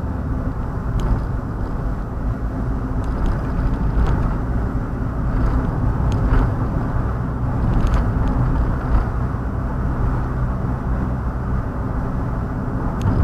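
Steady in-cabin driving noise from a car travelling a country road at about 70 km/h: engine hum and tyre rumble, with a few faint ticks.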